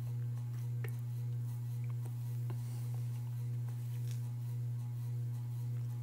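A steady low hum with faint overtones above it, unchanging throughout, with a few faint clicks scattered through it.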